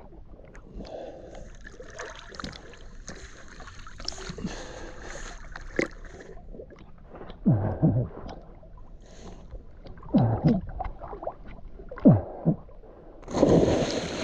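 River water sloshing and gurgling at the surface, with short loud gurgles about halfway through and twice more after. Near the end comes a loud splash as a person jumps from a boat into the river.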